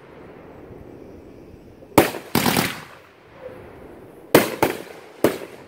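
Consumer aerial fireworks bursting overhead. A sharp bang comes about two seconds in, followed by half a second of crackling, then a quick run of three or four bangs near the end.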